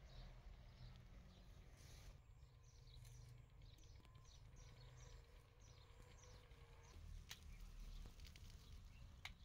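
Near silence: faint outdoor ambience with a bird chirping softly, a quick series of short falling notes in the middle, and a couple of faint clicks near the end.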